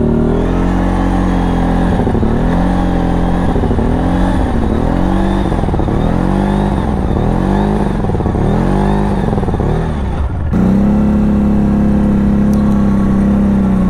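CFMOTO CForce 1000 ATV's V-twin engine revving up and down over and over, about once a second, while the ATV struggles to pull in deep snow with its front differential broken, so only the rear wheels drive. About ten seconds in the revving gives way abruptly to a steady engine note.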